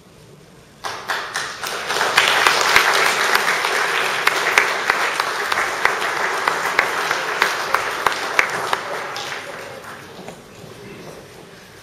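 Audience applause that starts suddenly about a second in, holds full for several seconds and then dies away near the end.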